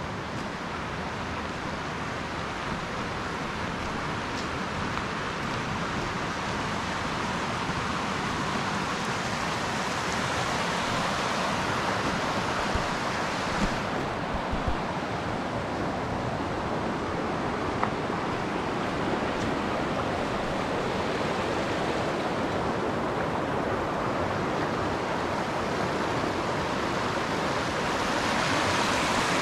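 Shallow stream rushing over stones: a steady hiss of running water that grows gradually louder. A few brief knocks near the middle.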